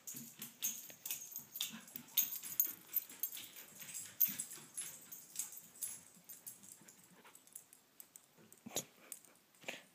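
Dog 'talking': a run of short, irregular vocal noises close to the microphone, with sharp clicks mixed in, thinning out over the last few seconds.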